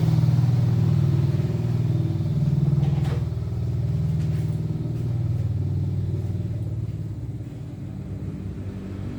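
Honda Genio scooter's small single-cylinder engine running unevenly, its note swelling and sagging, after standing unused for 8 to 10 years. The engine is still sputtering and has not run clean.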